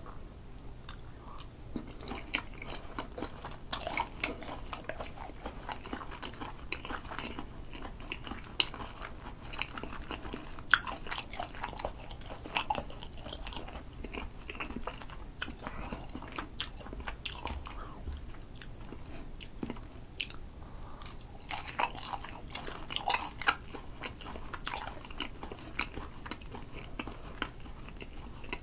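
Close-miked chewing of a mouthful of spicy-sauced grilled sea eel, with many small clicks from the mouth.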